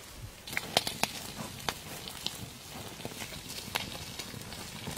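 Open wood fire crackling, with irregular sharp pops, a few of them louder, such as about one second in and near the end.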